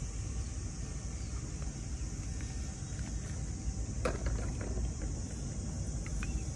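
Outdoor ambience with a steady low rumble of wind on the microphone and a faint high hiss; a short clatter of clicks about four seconds in, with a few faint ticks after it.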